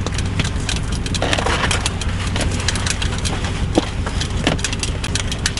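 A steady low hum with scattered sharp clicks and crackles over it.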